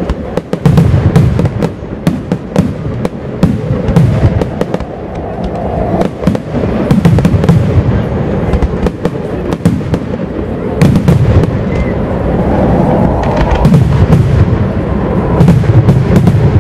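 Fireworks display: aerial shells launching and bursting, a rapid, dense series of loud bangs over a continuous low rumble.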